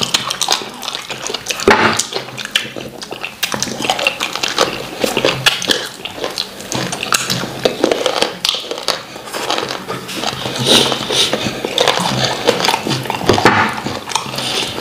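Close-miked eating sounds of wheat fufu with slimy ogbono soup eaten by hand: wet chewing and lip-smacking, with many short, sharp, irregular smacks.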